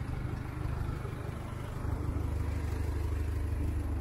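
Engine of a light box truck idling close by: a steady low rumble that grows a little stronger about two seconds in.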